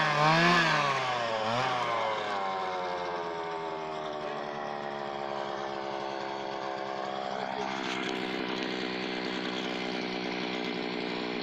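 Petrol brush cutter's engine revving up and down a few times, then slowing and settling to a steady idle within about three seconds.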